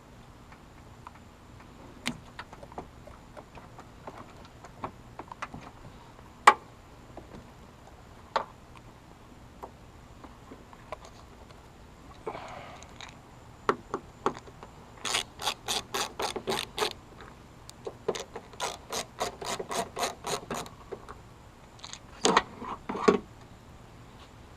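Hand tool ratcheting in two quick runs of even clicks, about eight a second, after a scatter of single taps and clicks from working on a car door's trim.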